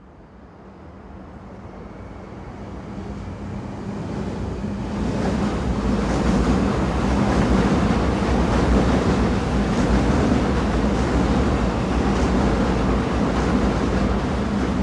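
A train running on rails: a steady rumble with rattling, fading in over the first five seconds and then holding steady.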